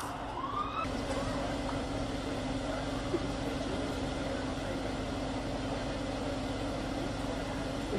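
A vehicle engine idling steadily, heard as a low even hum under street noise, with a short rising tone about half a second in.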